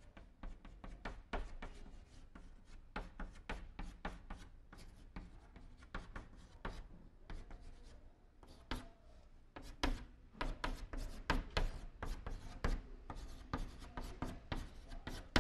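Chalk writing on a blackboard: an irregular run of short taps and scrapes as characters are written stroke by stroke.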